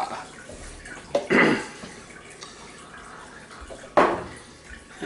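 Soup stock poured from a measuring cup into a stainless steel pot of vegetables, splashing and dripping as the last of it runs out, with a brief louder noise about four seconds in.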